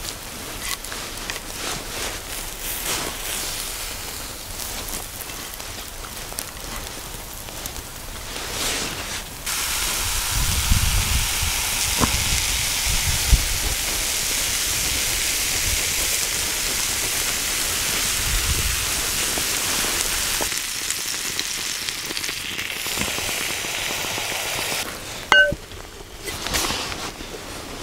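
Tandoori chicken pieces sizzling in a skillet, a steady frying hiss that grows much louder about ten seconds in and dies back near the end. There are a few sharp clinks near the end.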